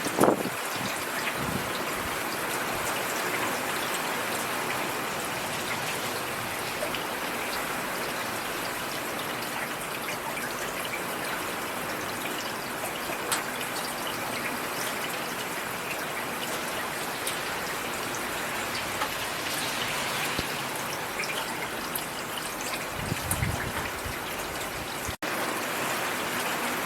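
Steady rainfall, an even hiss of many drops with no letup. A brief low rumble comes near the end, and the sound cuts out for an instant just after it.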